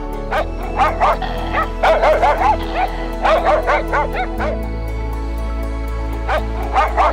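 A dog yipping and whining in quick runs of short rising-and-falling cries over background music with a steady low drone. The cries thin out about halfway through and pick up again near the end.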